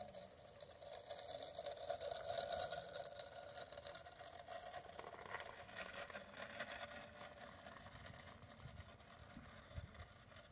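Small garden-railway locomotive running past with a faint mechanical whirr and light clicking, fading as it moves away.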